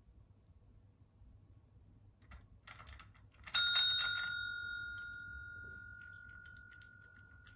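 A cat presses a desk call bell with its paw, setting off one clear ding about three and a half seconds in that rings on and fades slowly. Just before and under the strike comes a brief patter of clicks as the paw works the bell and the table.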